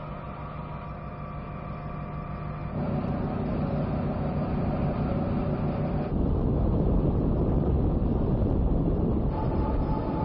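Cargo ship's machinery and hull noise: a steady low rumbling drone with a hum on top, changing abruptly in character about three, six and nine seconds in.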